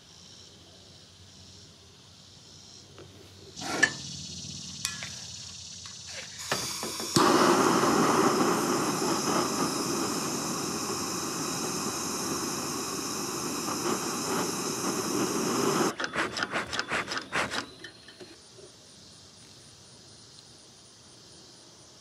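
Handheld torch flame hissing steadily into a bee smoker's fuel for about ten seconds, then cutting off, followed by a quick run of about half a dozen puffs, typical of the smoker's bellows being pumped to draw the fire.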